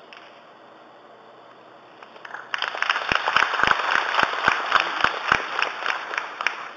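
Arena audience applauding a snooker shot: many hands clapping, starting about two seconds in and dying away near the end.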